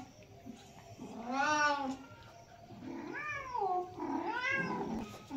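Domestic cat meowing three times, long meows about a second apart, each rising and then falling in pitch.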